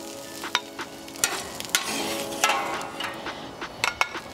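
Steel spatula scraping and tapping across a hot stainless flat-top griddle as caramelized onions are lifted off, with a light sizzle underneath. Several sharp scrapes and clinks through the stretch.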